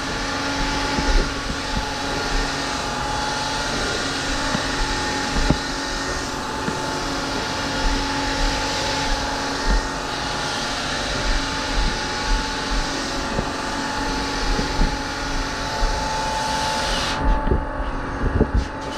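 Milwaukee cordless sander running steadily on the foam deck of a surfboard blank: a steady motor whine over the hiss of the abrasive pad on foam. Near the end the sander is lifted off the foam and the hiss drops away while the motor keeps running, with a few light knocks.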